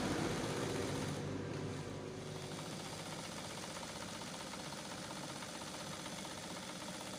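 Japanese-made Dressmaker sewing machine running steadily on its electric motor, the motor's hum making most of the sound. The machine, freshly cleaned and oiled, is being run in to work off leftover rust. It gets a little quieter about two seconds in.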